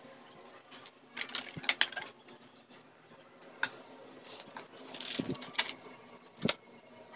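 Small objects (plastic puzzle cubes, a charger and cables) being picked up and set down on a slatted bamboo chair seat. Scattered sharp clicks and light clatters, with a cluster about a second in and a few more later.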